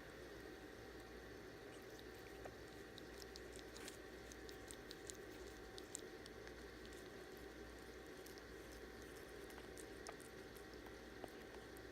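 Ferret grooming itself: faint, wet licking clicks over a steady low hiss. Most of the clicks come in a cluster a few seconds in, with a couple more near the end.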